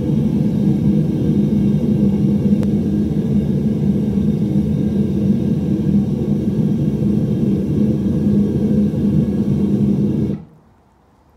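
Gas burner of a small metal-melting furnace running steadily, its sound mostly low-pitched, then cutting off suddenly about ten seconds in as the gas is shut off.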